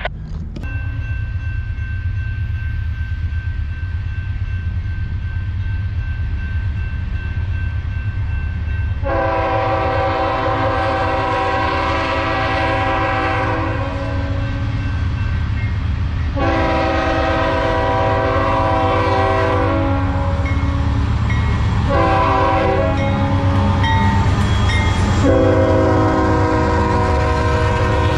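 Norfolk Southern diesel locomotive's multi-chime air horn sounding the grade-crossing signal of two long blasts, one short and a final long one, over the rumble of the approaching freight train, which grows louder as the lead locomotive comes near.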